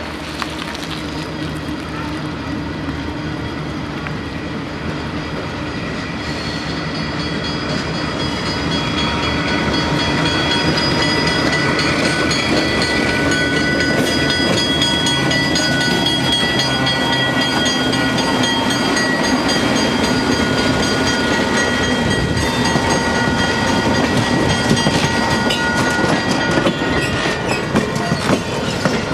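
Diesel locomotive and passenger train approaching and rolling slowly past at close range: engine rumble, growing louder from about eight seconds in. A steady high squeal from the wheels is heard over the rumble for most of its passing.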